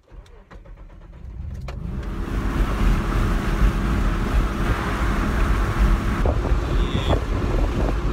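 A road vehicle pulling away: engine and road noise build over the first couple of seconds, then hold steady at cruising speed.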